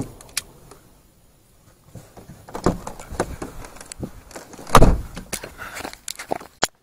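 Car door pulled shut from inside, closing with one heavy thud nearly five seconds in, after a few seconds of bumping and rustling inside the cabin; a short sharp click comes near the end.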